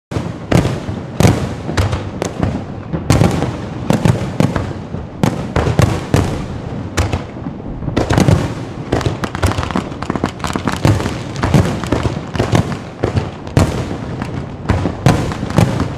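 Fireworks going off: a dense, unbroken run of sharp bangs, several a second, with crackling between them.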